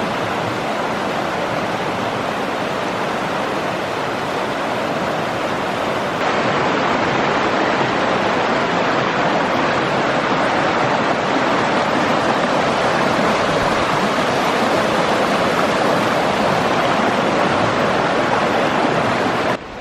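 Steady rush of flowing water from a mountain creek or small cascade, with a slight step up in level about six seconds in.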